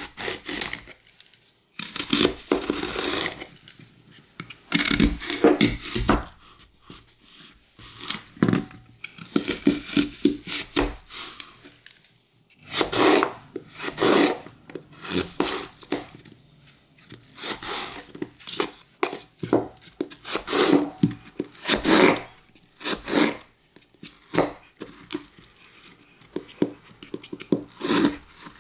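A small knife cutting fresh apples into wedges on a wooden cutting board: cut after cut through the crisp flesh, in irregular runs with short pauses between.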